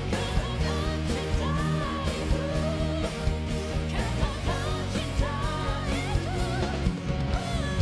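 Pop-rock song played by a band, with a wavering lead melody over steady drums and bass.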